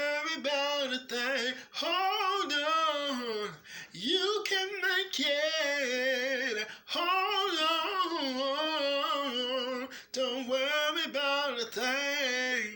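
Unaccompanied solo singing: one voice bending and wavering through long held notes and runs without clear words, in phrases separated by short breaths.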